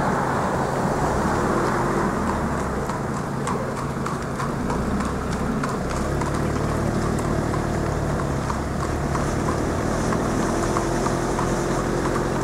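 Hooves of two trotting harness horses clip-clopping on a tarmac road as they pull sulkies, over the steady hum of car engines following close behind.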